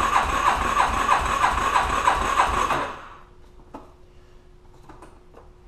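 Yamaha Raptor 350's single-cylinder four-stroke engine being cranked on its electric starter at wide-open throttle for a compression test, without firing; the cranking beats evenly with each compression stroke. It stops about three seconds in, leaving a few faint clicks. The gauge shows decent compression, about 110 psi.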